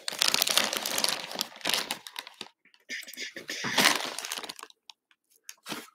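Clear plastic bag crinkling as hands handle it. It crackles densely for about two seconds, then in scattered crackles with a short burst near the middle.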